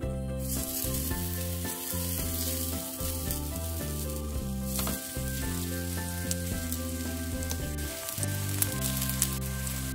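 Hot oil sizzling and crackling in a cast-iron pan as spoonfuls of chive-pancake batter are dropped in, the sizzle growing louder about halfway through. Background music plays underneath.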